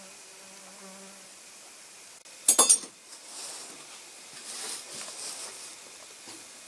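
A fly buzzes in short spells for about the first second. About two and a half seconds in comes a brief, loud clatter of metal camp dishes. Soft hissing that rises and falls follows it.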